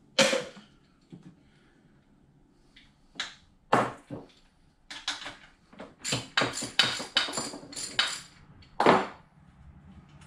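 Metal hand tools clanking and knocking against an outboard motor's side motor mount nuts and bracket as they are worked loose: one loud clank just at the start, a few more a few seconds in, then a quick run of sharp knocks at about three or four a second.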